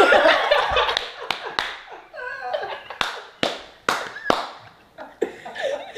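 A group of people laughing hard, with a handful of sharp hand claps scattered through the laughter.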